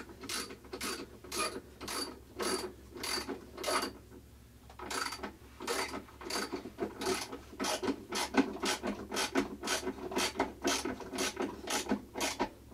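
Socket ratchet wrench clicking in quick repeated strokes as it is swung back and forth, tightening the bolt at the centre of a washing machine's agitator. The clicking pauses briefly about four seconds in, then picks up again faster.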